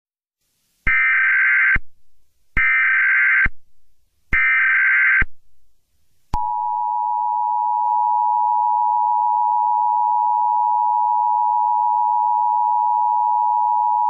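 Emergency Alert System tones: three short bursts of SAME digital header data, about 0.9 s each, with gaps of about a second between them. Then, about six seconds in, the steady two-tone EAS attention signal starts and holds.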